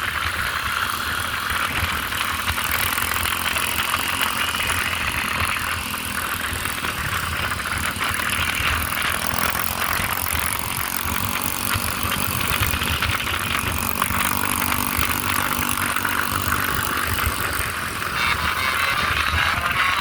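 Road traffic with buses running past: a steady wash of engine and road noise, with no horn tune sounding.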